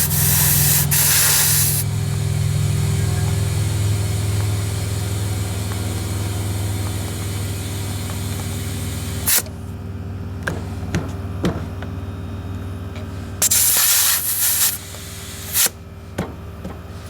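Compressed air hissing in bursts into a lawn mower tire being inflated after sealant was added: a burst of about two seconds at the start, another of about a second near the end, and a short puff just after. A steady low hum runs underneath and fades after the middle, with a few light clicks in between.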